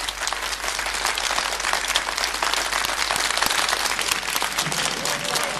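Large concert-hall audience applauding: dense, steady clapping from many hands.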